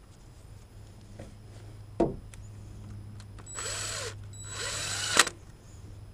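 A DeWalt cordless driver spinning a socket on a bolt in the engine bay in two short runs, each under a second long, the second ending in a sharp clack. A single sharp knock of metal tools comes about two seconds in.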